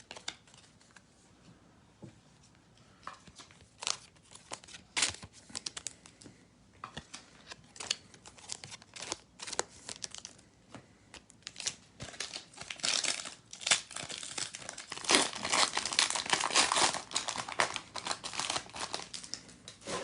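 Trading-card pack wrapper being torn open and crinkled. Scattered crackles at first, becoming denser and louder in the last several seconds.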